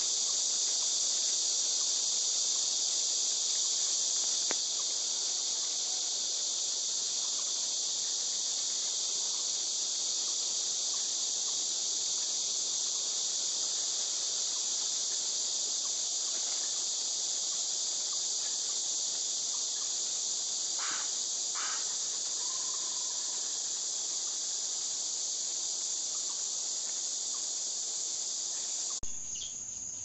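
Steady, dense, high-pitched drone of an insect chorus, changing abruptly and dropping a little near the end.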